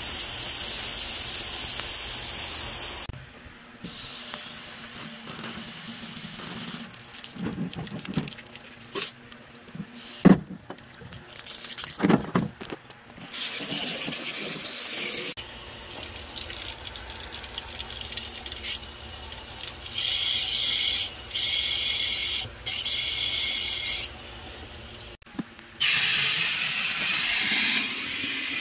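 Garden hose spray nozzle spraying water in several bursts, first onto a concrete driveway to wash away spilled coolant, then into a plastic coolant overflow tank to flush it out. A few sharp knocks fall in a quieter stretch in the middle.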